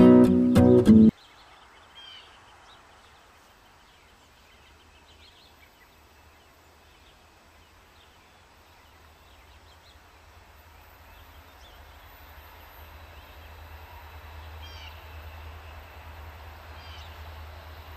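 Acoustic guitar music cuts off about a second in. Then a few scattered bird chirps over a low rumble that slowly grows louder: a freight train led by an EMD SD70M-2 diesel locomotive approaching from a distance.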